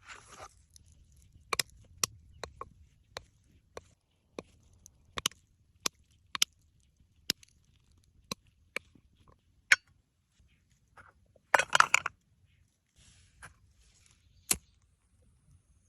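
A series of sharp, irregular taps and knocks, a couple of seconds apart at most, with a short cluster of louder strikes near the end.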